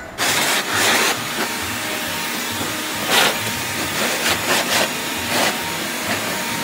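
Electric leaf blower running with a steady rush of air, with several brief louder surges.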